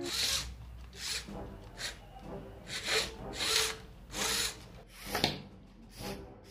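A small homemade RC tank's tracks scraping and clattering over a pile of loose wooden craft sticks as it climbs, in rough bursts about once a second.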